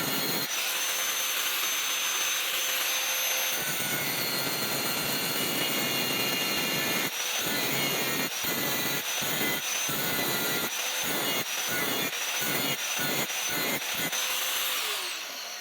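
Electric grinder grinding steel for a knife blade: a steady motor whine under a harsh grinding noise. From about halfway through, the grinding comes in short repeated passes, about two a second, as the steel is pressed on and lifted off again.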